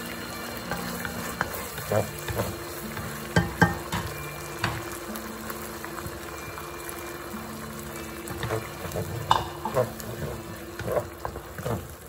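Beef in oyster sauce sizzling in a nonstick wok as a wooden spatula stirs and scrapes through it, with a number of sharp knocks of the spatula against the pan.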